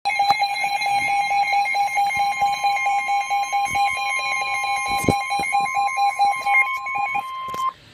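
Emergency weather alert tone: the NOAA Weather Radio 1050 Hz warning alarm tone, held as one steady pitch, with a rapidly pulsing beep on a lower pitch over it. Both cut off near the end, just before the warning message starts.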